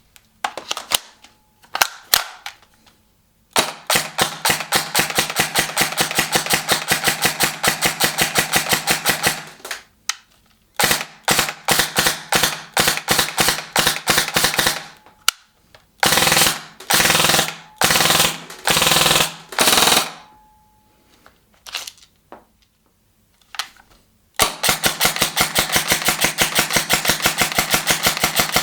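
Krytac Kriss Vector airsoft electric gun firing: a few single shots, then long full-auto strings of rapid, evenly spaced shots from the gearbox, broken by short pauses.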